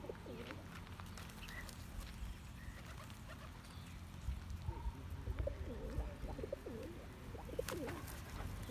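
Feral rock pigeons cooing, a run of low, wavering coos that starts about halfway through and goes on to the end, over a steady low rumble. A few sharp clicks come near the end.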